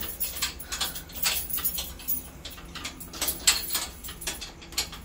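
Irregular metallic clicks and rattles of keys and the lock on a wrought-iron grille gate being worked by hand.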